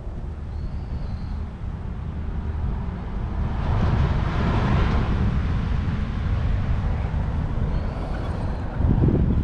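Wind rumbling on a small action camera's microphone, swelling into a louder rush for a couple of seconds in the middle.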